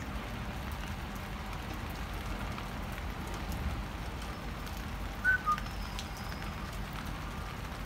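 Steady rain falling and pattering on rooftops and railings. A little past the middle come two short high chirps, the second lower than the first.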